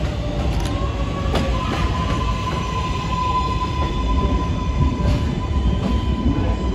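R142A subway train pulling into the station, wheels rumbling on the rails. About a second in a steady high-pitched squeal starts and holds as the cars slow alongside the platform.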